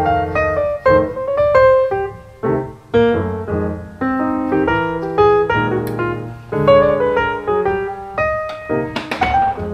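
Background piano music: a steady flow of struck notes ringing and fading.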